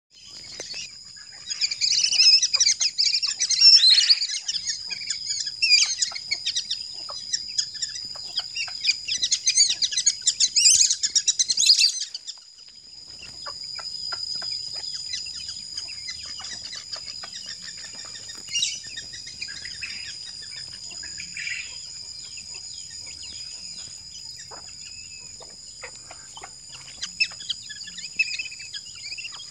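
A flock of small birds chirping and calling busily, densest for the first twelve seconds, then thinning to scattered calls. A steady high-pitched ringing runs underneath throughout.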